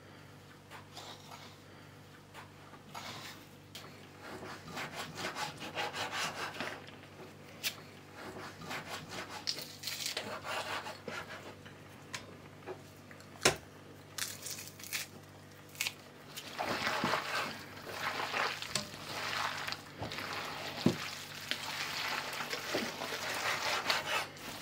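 Minced pork being mixed in an enamel bowl: a metal spoon stirring and scraping spices through the meat, a garlic press squeezing garlic in, then bare hands kneading the wet mince, the busiest and loudest stretch over the last several seconds. A single sharp click about halfway through.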